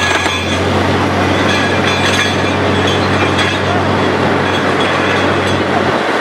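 Truck-mounted borewell drilling rig drilling: a steady engine drone under a dense rattling hiss as rock cuttings are blown out of the borehole around the drill pipe. The low drone drops away near the end.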